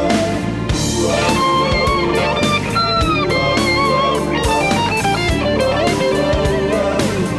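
Rock song instrumental passage: an electric guitar plays a lead line with bent notes and vibrato over drums.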